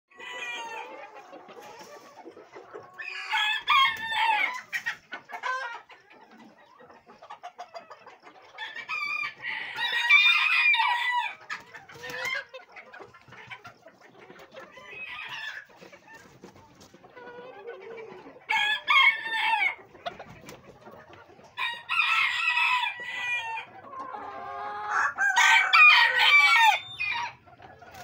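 Silver Sebright bantam roosters crowing about five times, a few seconds apart, with quieter clucking from the flock between the crows.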